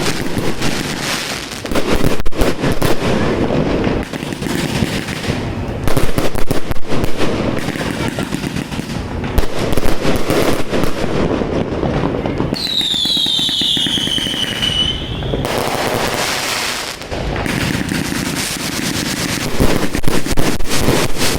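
Fireworks going off in a dense, continuous barrage of rapid bangs and crackling. About thirteen seconds in, a whistling firework sounds for roughly three seconds, its pitch falling.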